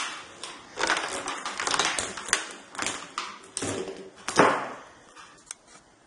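Handling noises around a plastic water-filter vacuum cleaner that is not yet switched on: irregular rustles, scrapes and clicks, with one louder knock about four seconds in, as the power cord is unwound and the machine is handled.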